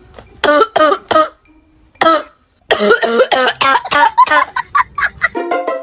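An old man coughing and clearing his throat in fits: a few coughs in the first second, another near two seconds in, then a long run of rapid coughs.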